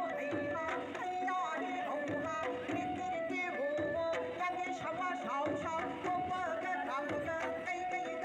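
Music: an ornamented melody with frequent pitch slides, played over steady drum strokes.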